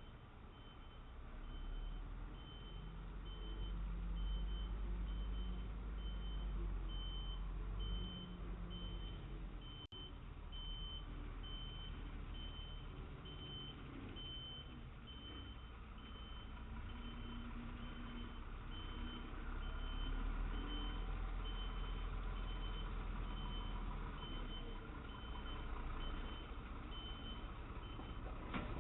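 A large vehicle's reversing alarm beeping steadily about once a second over the low rumble of its diesel engine, heard thinly through a doorbell camera's microphone.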